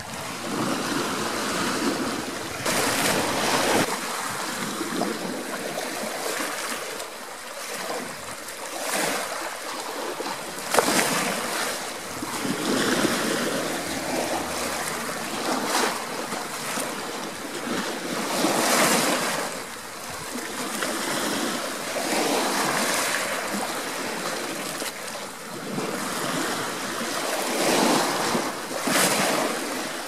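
Small sea waves lapping and washing over rocks and pebbles at the shoreline of a calm bay, each swash rising and falling every few seconds.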